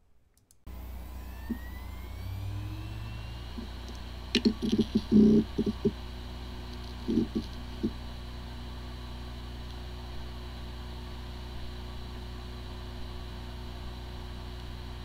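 Hard disk drive with corrupted firmware powering up: the spindle motor spins up with a rising whine, a few seconds in there are bursts of knocks and ticks, and then the platters keep up a steady whir. It sounds like a healthy drive, yet the firmware corruption keeps the computer from detecting it.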